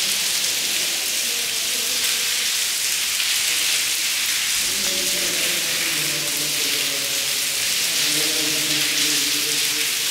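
Steady rain falling and splashing on the wet stone paving of an open cloister courtyard, an even hiss with no let-up.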